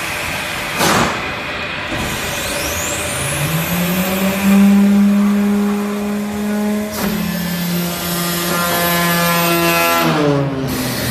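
Foundry molding machine running over a constant hiss of air, with a sharp knock about a second in. A whine rises, then a steady motor hum holds and winds down in pitch near the end.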